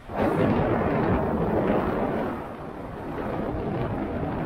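Wind buffeting the microphone of a head-mounted action camera while riding a bicycle: a rushing noise that surges in just after the start and eases a little about two seconds in.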